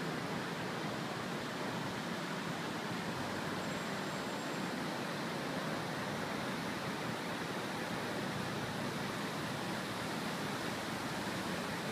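Steady wash of outdoor city noise: the plaza fountain's water jets splashing, mixed with distant traffic.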